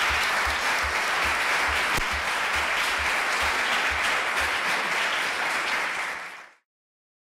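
Audience applauding at the end of a talk, with a regular low thud about two to three times a second under the clapping. The applause cuts off suddenly near the end.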